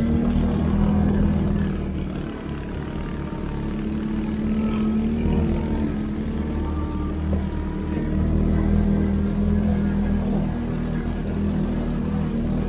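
CF-Moto 450 ATV engine running under way, its revs rising and easing a little as it rides.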